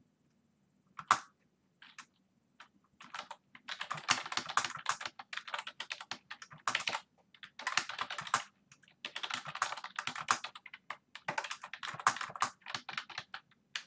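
Typing on a computer keyboard: a lone keystroke about a second in, then runs of fast keystrokes broken by short pauses.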